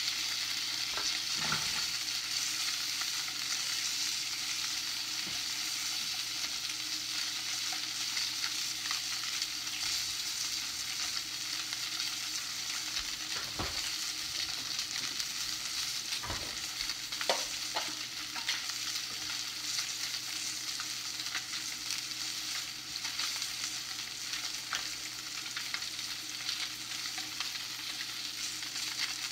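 Salmon fillets sizzling steadily in a hot non-stick frying pan, with a few light knocks about halfway through.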